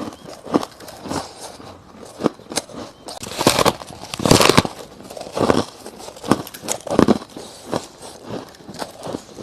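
Close-miked biting and chewing of soft crushed ice frost, a run of uneven crunches with the loudest, longest crunching about halfway through.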